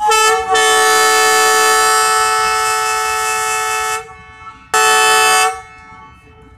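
ZCU20 diesel locomotive's air horn sounding two blasts: a long steady blast of about four seconds, then a short one.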